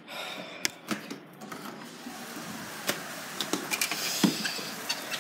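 Rustling and several sharp clicks from a phone being handled while it is carried, over a steady hiss of heavy rain.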